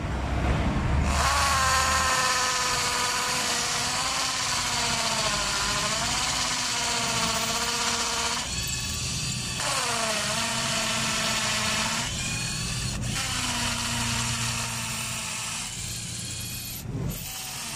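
Fujima 12 V cordless hammer drill in hammer mode boring into a concrete floor with a masonry bit. It starts about a second in; the motor's whine sags and recovers in pitch as the bit bites, eases off briefly twice, and stops near the end.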